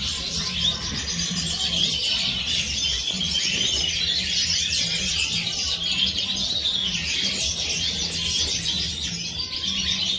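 Many caged Siberian goldfinches (major goldfinches) chirping together in a dense, continuous chorus, with a low steady hum underneath.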